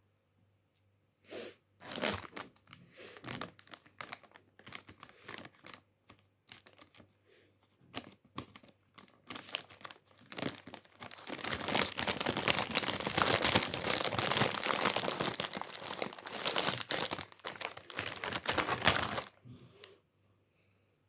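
Packaging or a wrapper being crinkled and rustled by hand. Scattered crackles come first, then about eight seconds of dense, continuous crinkling that stops shortly before the end.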